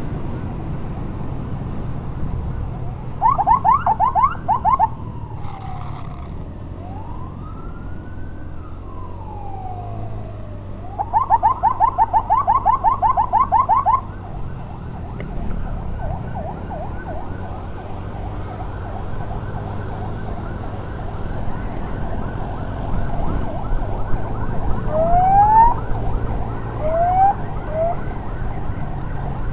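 Electronic emergency siren switching between patterns: loud bursts of rapid pulsing tone a few seconds in and again from about eleven seconds, a slow wail that rises and falls between them, then a quieter fast warble with a few short rising whoops near the end. A motorcycle engine and road noise run underneath.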